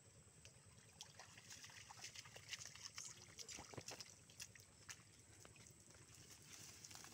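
Faint irregular patter and trickle of water dripping and running off a wet cast net as it is lifted out of shallow river water, with light splashes from wading feet. The drips are busiest between about one and five seconds in.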